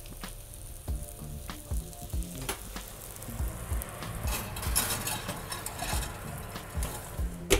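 Portobello mushrooms topped with feta and balsamic vinegar sizzling in a hot frying pan as it goes into the oven, with several short knocks of the pan and one sharp knock near the end.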